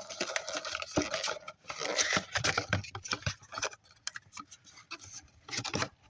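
Replacement ignition coil being unpacked from its box: cardboard and plastic packaging rustling and scraping, with many small clicks and knocks, busiest at first, sparser for a couple of seconds, then busy again near the end.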